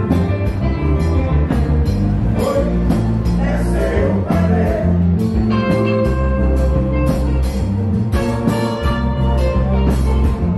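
Konpa band playing live: a steady drum beat with guitar and singing.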